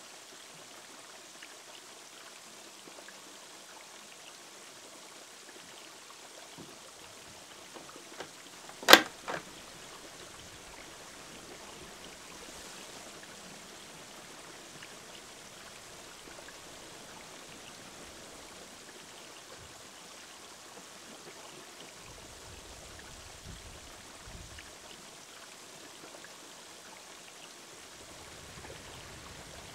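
Steady trickling of water from a small garden-pond waterfall. About nine seconds in, a single sharp knock, much louder than the water, is followed by a smaller one.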